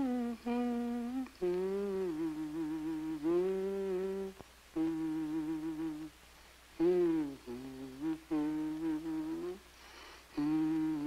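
A voice humming a slow tune in short phrases of held notes with a slight waver, pausing briefly between phrases.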